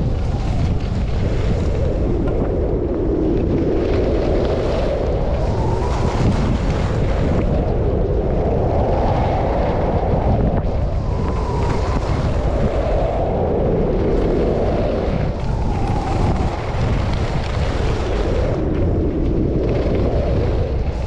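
Wind buffeting the microphone during a ski descent, a steady low rumble, with the hiss and scrape of skis on snow swelling and fading every couple of seconds.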